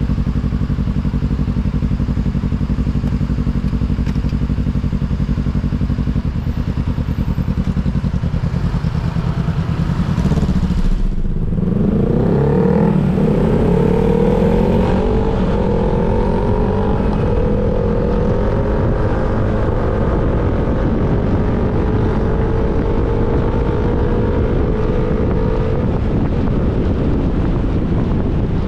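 Motorcycle engine running steadily at low revs, then pulling away hard about ten seconds in. The pitch rises in several quick sweeps, one per gear change, then climbs in a long steady rise.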